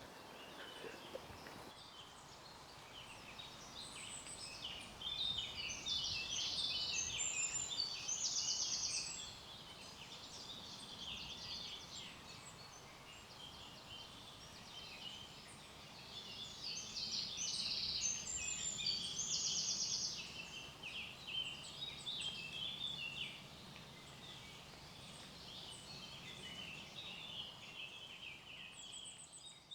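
Small songbirds singing, with many quick high notes and rapid trills. Two louder bouts of song stand out, about five seconds in and again about sixteen seconds in.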